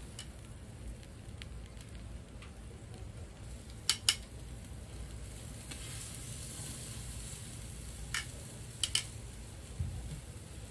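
A tri-tip steak sizzling over hot charcoal on a kettle grill's metal grate. Steel tongs click sharply against the grate as the meat is lifted and turned, loudest as a pair about four seconds in and then a few more near the end. The sizzle grows louder partway through, as a fresh side of the meat goes onto the hot grate.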